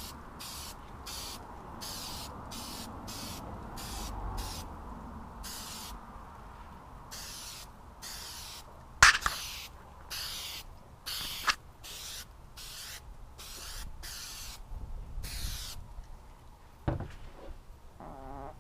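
Aerosol can of 3M Hi-Strength 90 spray adhesive giving about two dozen short hissing bursts in quick succession, coating a trim piece before the fabric goes on. A few sharp knocks come in between, near the middle and near the end.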